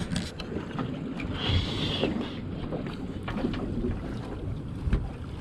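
Wind buffeting the microphone over the noise of a small boat at sea, with scattered clicks and knocks. There is a brief high hiss about a second and a half in, and a thump near the end.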